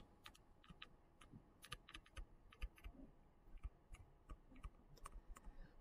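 Near silence with faint, irregular clicks and taps of a stylus on a touchscreen as words are handwritten.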